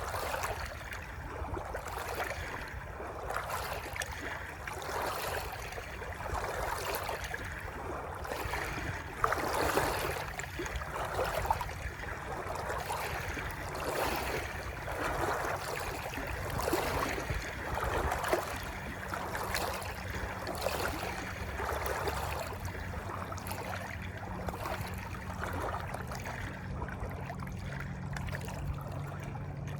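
Flowing water splashing and gurgling in uneven surges, over a low rumble.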